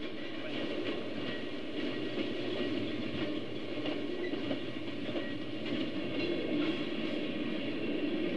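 HO scale model freight cars rolling past on the track: a steady running rumble with light clicking of the wheels over the rail joints.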